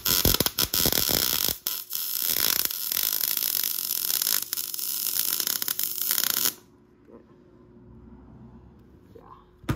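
MIG welding arc crackling as a motor mount is welded onto a steel motorcycle frame, with two short breaks in the arc; it stops suddenly about six and a half seconds in. A single sharp click near the end.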